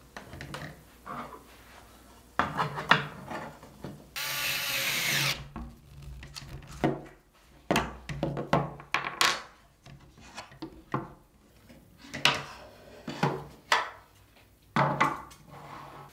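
Bamboo stool parts knocking and clattering against a wooden tabletop as a folding stool is screwed together, with a power screwdriver whirring once for about a second, about four seconds in.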